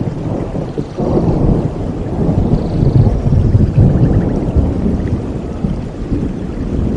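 Thunder rumbling in a rainstorm. It swells about a second in and is loudest near the middle, over a steady hiss of rain.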